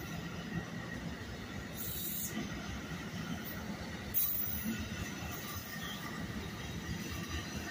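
NJ Transit commuter train of bilevel coaches rolling past: a steady rumble of wheels on rail with a faint high steady tone. Short hissing squeals come about two seconds and about four seconds in.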